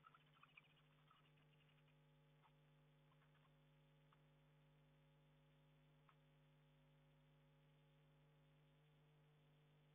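Near silence: a steady faint electrical hum from the nest-box camera, with a few soft clicks and scrapes in the first second and an odd faint tick after.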